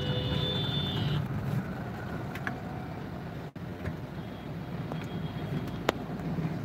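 Road traffic heard from inside a car moving slowly in traffic: a steady low engine and road rumble, with a short high tone in the first second and a single sharp click near the end.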